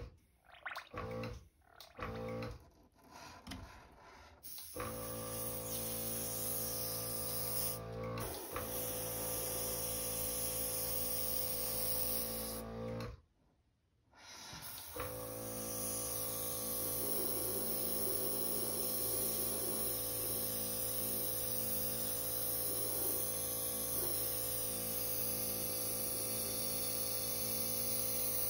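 Guitar music in the first few seconds, then a steady hum with a constant air hiss: an airbrush compressor running and air flowing through the airbrush. It cuts out for about two seconds midway, then runs on.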